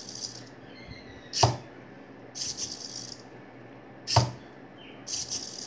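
Tiny 9g hobby servos on a small two-legged robot buzzing in short bursts as it rocks and lifts its feet. Its feet knock down on the desk twice, about a second and a half in and again about four seconds in.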